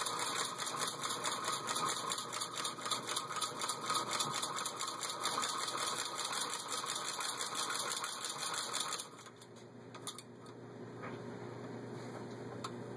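1912 New Home Midget hand-crank sewing machine with a bullet shuttle, stitching through fabric as it is cranked by hand: a quick, even mechanical clatter. It stops about nine seconds in.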